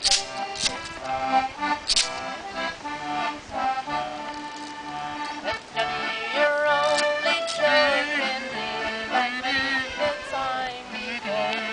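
Accordion music with a regular beat in the low notes; from about six seconds in a sliding melody line comes to the fore.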